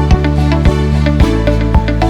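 Background music with a steady beat, bass notes and a plucked melody.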